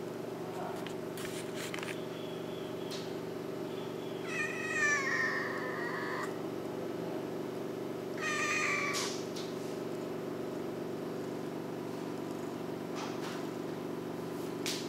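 Female domestic cat meowing twice: a long call of nearly two seconds that falls in pitch, then a short one a few seconds later.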